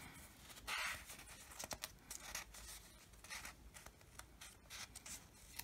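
Faint rustling of notebook paper and a few soft ticks as a hand handles the edge of a page, with one slightly louder rustle about a second in.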